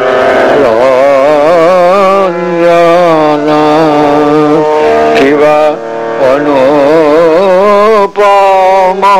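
A man singing a Bengali devotional song in Indian classical style, his long notes wavering with ornaments, over a steady held drone. The phrases break off briefly several times.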